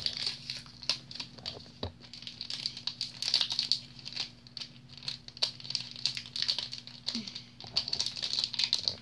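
Shiny foil toy packet crinkling and crackling in hands as it is pulled open, in irregular crackles throughout.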